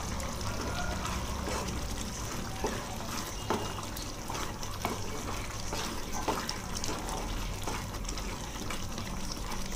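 Thick cauliflower gravy simmering in a pan on the stove: a steady hiss with scattered soft pops and clicks, and a wooden spatula stirring through it near the end.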